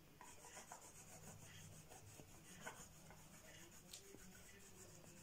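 Near silence, with faint rubbing and light scraping of cardboard toilet-paper rolls being handled and pressed together, and a few small soft taps.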